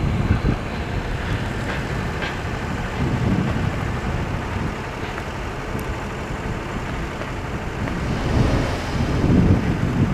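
Wind rumbling on the microphone over road traffic, with a car driving past and swelling louder near the end.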